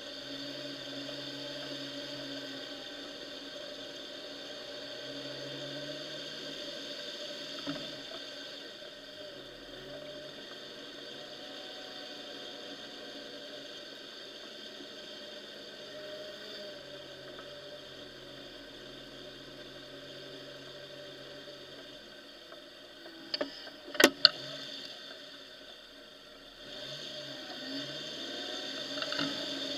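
Off-road vehicle's engine running at low speed while driving through muddy, water-filled ruts, a steady drone with shifting pitch. A few loud sharp knocks sound about two-thirds of the way through.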